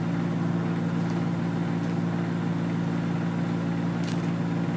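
Steady low machine hum made of several held tones, unchanging throughout, with a faint click about four seconds in.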